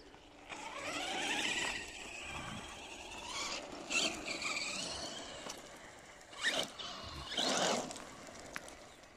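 Arrma Typhon 3S RC buggy's brushless electric motor whining, rising and falling in pitch as the throttle is worked. Two short, louder bursts come about six and a half and seven and a half seconds in.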